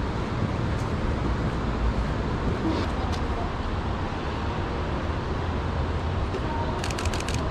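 Steady city-street background with a low rumble of traffic. A couple of light clicks come about three seconds in, and a quick run of sharp clicks comes near the end.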